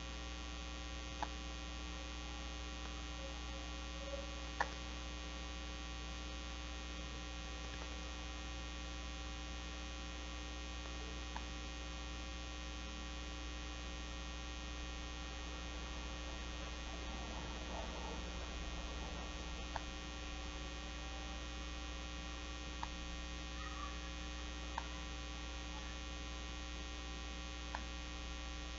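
Steady electrical mains hum made of several unchanging tones, with a few faint clicks scattered through it from the cords being handled and knotted on the board.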